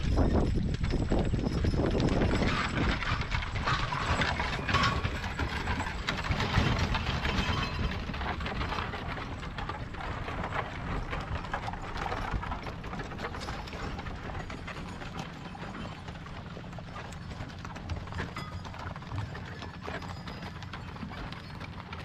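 Hooves of a mule team and horses clopping on a dirt road, with the rattle of passing wooden-wheeled wagons and carriages. Loudest at the start, gradually fading as the teams move on.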